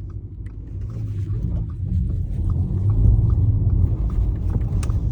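Turbocharged Audi A5's engine and exhaust heard from the moving car, a low rumble that grows louder about two seconds in.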